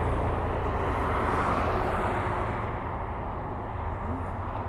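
Engine and road noise of a passing vehicle, a low steady rumble that slowly fades away.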